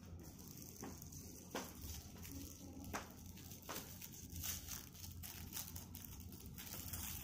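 Faint crinkling of a small polvoron wrapper being unwrapped by hand: a few soft, scattered crackles over a low steady hum.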